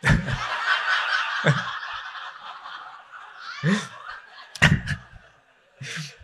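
A group of people bursting into laughter all at once, the laughter fading over a few seconds, with a few single laughs standing out later.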